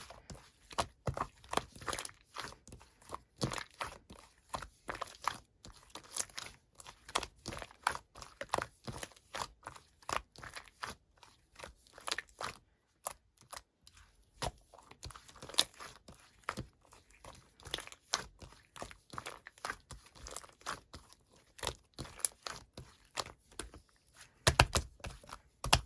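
Slime being squeezed, pressed and stretched by hand, giving a dense, irregular run of small clicks, pops and crackles, with a brief lull about halfway through and louder, deeper squishes near the end.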